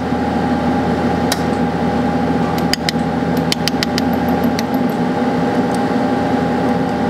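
Sunstone Orion LZR 100 benchtop laser welder firing a quick run of pulses into 14 karat gold filler wire, heard as about nine sharp clicks, most of them close together in the middle. A steady machine hum runs under them throughout.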